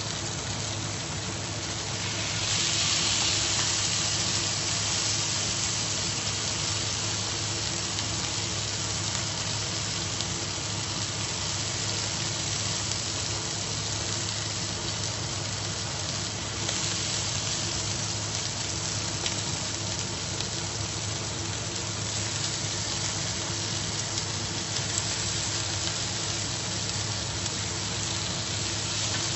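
Pieces of beef steak sizzling in a nonstick frying pan: a steady frying hiss that grows louder about two and a half seconds in and again a little past halfway, over a steady low hum.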